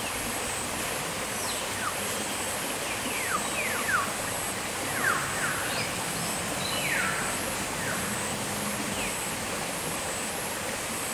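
Forest ambience: a steady hiss under a high insect trill that pulses about twice a second, with several bird calls sliding down in pitch, bunched in the middle.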